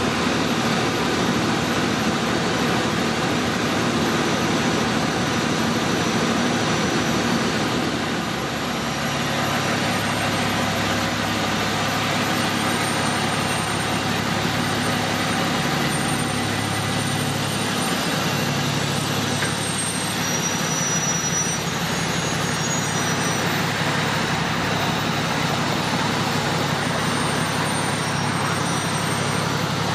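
Diesel engine of a 2007 Pierce Quantum fire engine (pumper) running steadily as the truck pulls slowly out of its station bay. A deeper, stronger engine hum sets in about nine seconds in.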